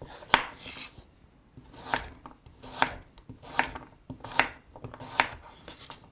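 Kitchen knife slicing a carrot into thin quarter-rounds on a bamboo cutting board: six sharp knocks of the blade on the wood, a little under a second apart.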